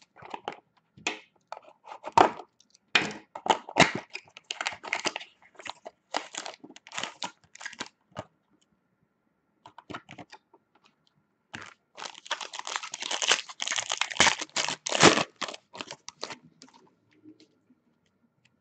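Crinkling and tearing of the packaging of an Upper Deck SP Game Used hockey card box being opened, in irregular rustles. After a few seconds' pause, a denser, louder stretch of foil card-pack wrapper tearing and crinkling follows, then fades out.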